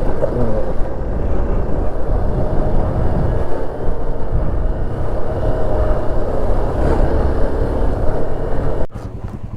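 Hero XPulse 200 4V motorcycle riding along, its engine running under heavy wind rumble on the microphone. The level falls off abruptly near the end.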